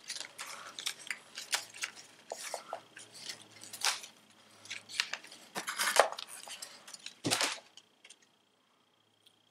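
Handling noise as a rubber stretch band is pulled off its cardboard packaging card: irregular small clicks, scrapes and rustles. It stops near the end.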